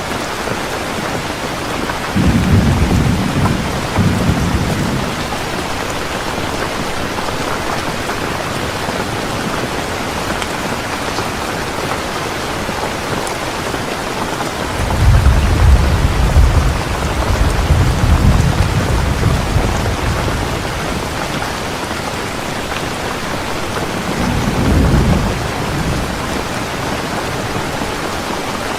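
Steady heavy rain falling, with thunder rumbling three times: about two seconds in, a longer roll around the middle, and a short one near the end.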